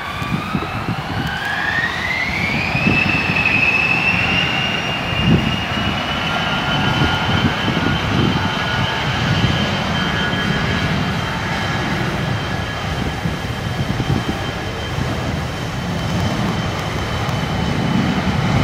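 Bombardier CRJ-900's twin rear-mounted General Electric CF34 turbofans spooling up to takeoff power: a whine rises steeply over the first three seconds or so, then holds at a steady high pitch over a low rumble as the jet accelerates down the runway on its takeoff roll.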